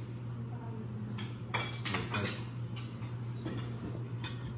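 Spoons and forks clinking against plates and serving bowls as several people eat at a table, in a few sharp clinks with the most about halfway through. A steady low hum runs underneath.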